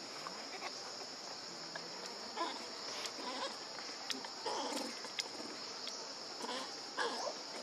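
A steady high-pitched drone of insects, with several short squeaky cries from a newborn macaque as its mother handles it, and a few sharp clicks.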